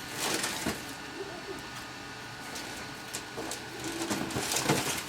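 Creality Ender 3 3D printer running, its stepper motors whirring with short held tones as the print head moves, louder in two spells, about half a second in and again near the end.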